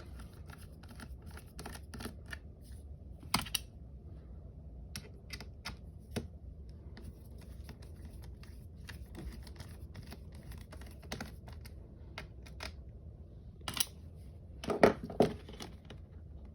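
Scattered clicks, taps and scrapes of hands and a small tool working on a laptop's plastic case, with a louder knock about three seconds in and a cluster of louder clicks near the end.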